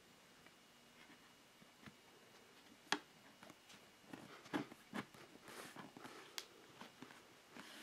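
Light clicks, taps and soft rubbing from a hand handling and pressing a vinyl-wrapped panel with an edge-lit plexiglass insert. One sharp click about three seconds in is the loudest, followed by a cluster of smaller clicks and rustles.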